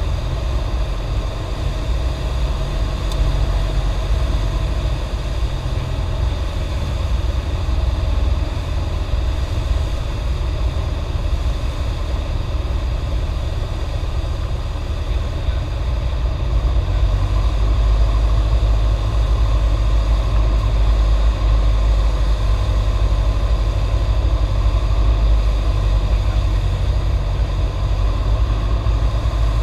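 Cessna 172's single piston engine and propeller running steadily on final approach, heard inside the cockpit as a loud low drone with rushing noise over it. The drone grows a little louder about halfway through.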